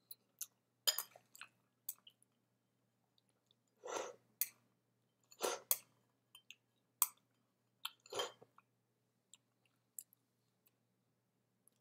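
Close-miked chewing and mouth noises of someone eating panko-breaded chicken and rice: short wet clicks and smacks, with a few louder bursts spread through.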